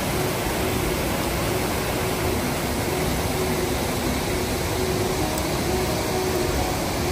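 Steady rushing roar of a waterfall and a fast-running stream, an even wash of water noise that cuts in suddenly.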